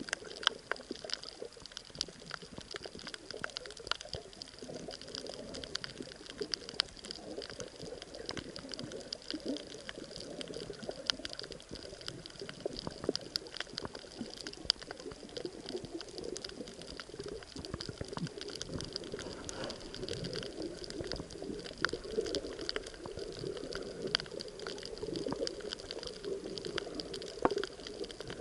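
Underwater ambience heard through the camera: muffled water movement and bubbling, with a constant scatter of sharp little clicks.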